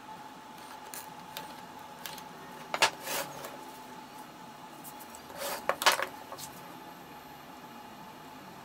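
Wooden strips set down and shifted on a wooden workbench: two short clusters of knocks, about three seconds in and again about six seconds in, over a faint steady hum.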